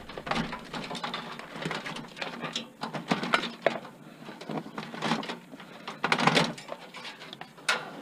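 Desktop computer being taken apart by hand: irregular clicks and knocks of metal and plastic parts, with a louder scrape about six seconds in.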